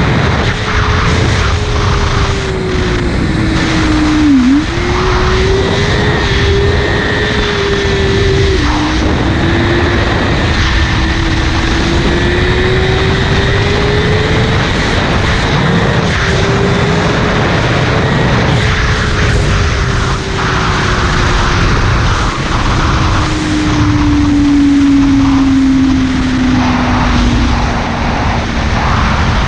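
Buell 1125CR's liquid-cooled V-twin running hard on a ride. The revs climb and drop sharply several times as it shifts, then the pitch falls slowly near the end as it backs off. Steady wind rush runs underneath.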